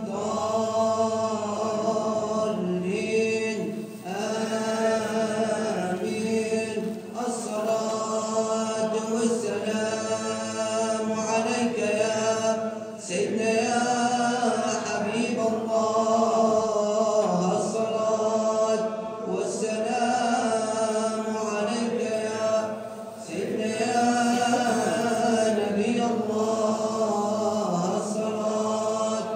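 Sufi devotional chant (sama') in the Annaba malouf style: long melismatic vocal phrases over a steady held low note, with short breaks between phrases.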